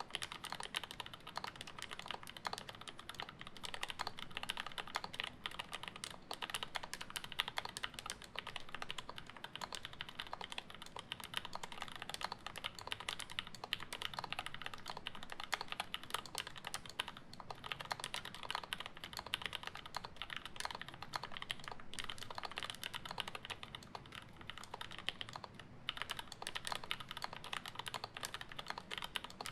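Fast, continuous typing on a custom acrylic-plate Alice-layout mechanical keyboard with lubed UHMWPE-stem switches in Gateron Milky housings and GMK keycaps. It is a steady stream of keystroke clacks, broken by a couple of brief lulls.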